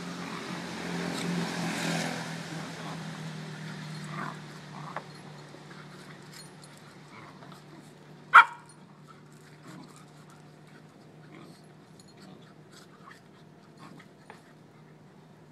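A beagle and her puppies play-fighting, with scuffling in the first few seconds and soft dog whimpers and yips. One short, sharp yelp about eight seconds in is the loudest sound.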